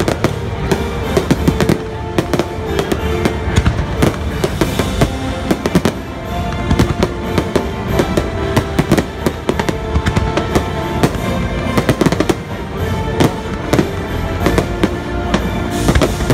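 A fireworks display going off in rapid succession, many sharp bangs and crackles one after another, with show music playing underneath.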